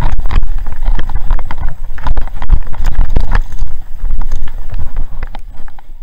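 Downhill mountain bike riding fast over a rough dirt trail, heard from a camera on the bike: a loud, continuous low rumble with wind on the microphone, broken by frequent rattling clicks and knocks from the bike jolting over bumps.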